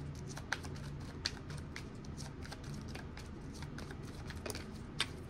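A tarot deck being shuffled by hand, overhand style: a run of irregular light card clicks and riffles, a few sharper ones among them.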